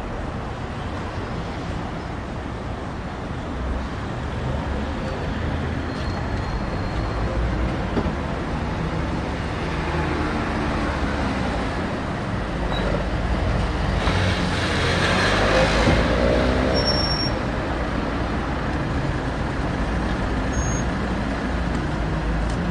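Car park ambience: steady city traffic noise with vehicle engines running. One vehicle passes close and is loudest a little past the middle, its engine note rising and falling.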